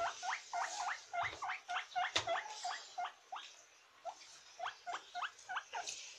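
Guinea pig squeaking: quick short rising squeaks, several a second, in a dense run, then a short lull and a sparser second run.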